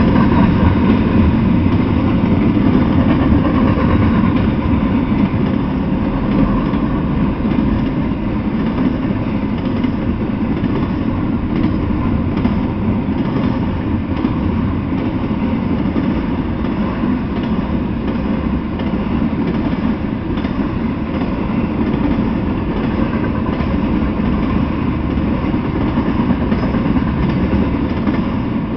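Intermodal freight train rolling past, its well cars loaded with containers and truck trailers: a steady rumble of wheels on rails.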